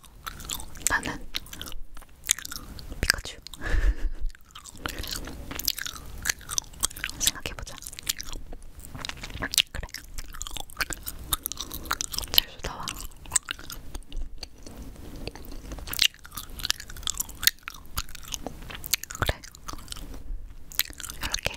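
Gum being chewed right up against a recorder's microphone: a continuous run of irregular mouth clicks and smacks.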